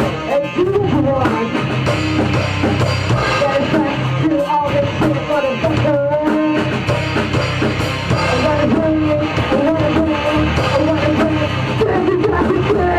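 Rock band playing live in a raw rehearsal recording: electric guitar and drum kit going together without a break.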